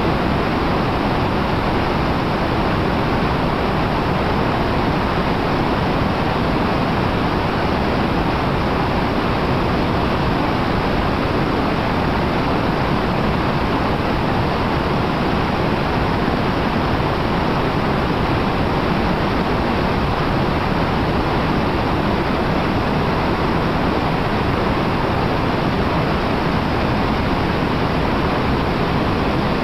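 Steady rushing of whitewater rapids on a river running at high water, loud and unbroken.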